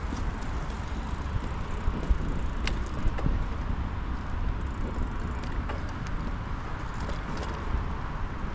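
Bicycle riding along: a steady rumble of rolling and wind noise with scattered light rattles and clicks.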